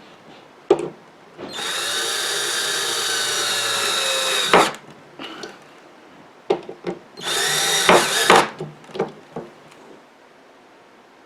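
Power drill driving screws into the wooden table frame: one run of about three seconds ending in a sharp clunk, then a shorter run about a second long, with clicks and knocks of wood and tool handling around them.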